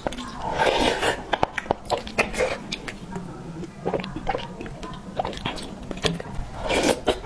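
Close-miked eating of soft rice in soup with braised pork: chewing, lip smacks and small wet clicks, with two longer rushes of noise, one near the start and one near the end.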